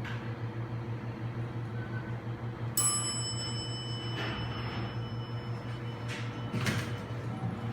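Dover Oildraulic hydraulic elevator's pump motor humming steadily. About three seconds in, a single bell-like chime rings out and fades over a couple of seconds, followed by a few short knocks as the doors move.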